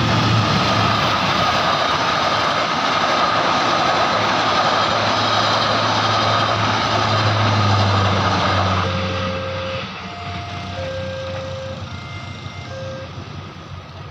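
A train passing over a level crossing, its wheels and engine loud for about nine seconds, then dying away. The crossing's electronic warning siren is left sounding, a repeating sequence of short notes at different pitches.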